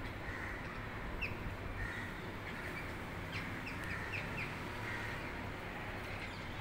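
A flock of rose-ringed parakeets calling: short, high chirps and squawks scattered throughout, most of them in a run around the middle, over a steady low background hum.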